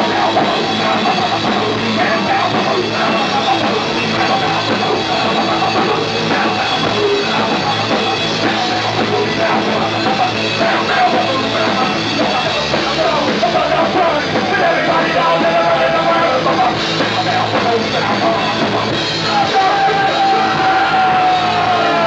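Punk rock band playing loud and live: electric guitars, bass guitar and a drum kit, with a singer yelling into the microphone.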